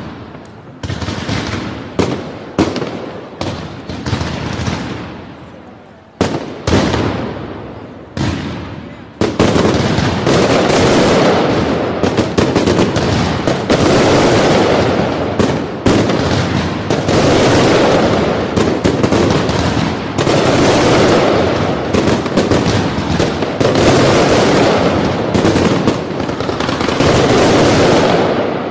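Fireworks exploding: separate sharp bangs, each trailing off, then from about nine seconds in a continuous rapid barrage of bangs that swells and eases in waves.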